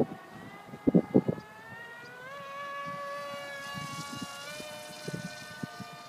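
The brushless outrunner motor and propeller of an electric RC model plane whining in flight, rising in pitch about two seconds in and dropping slightly near the end. Gusts of wind hit the microphone about a second in and again near the end.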